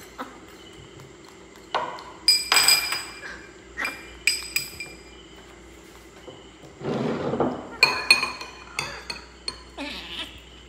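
Metal spoon clinking against ceramic bowls: a series of separate sharp clinks, each with a short ring, in two clusters.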